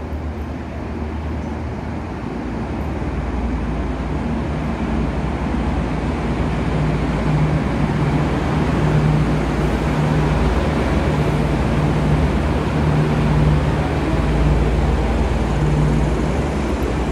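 V/Line VLocity diesel multiple unit pulling into the platform, its diesel engines humming steadily and growing louder as it draws alongside.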